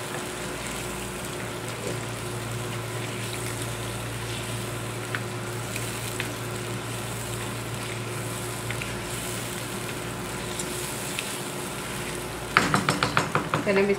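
Chicken in a tomato and yogurt masala sizzling steadily as it fries in a wok, stirred with a wooden spatula, with a few light scrapes and taps.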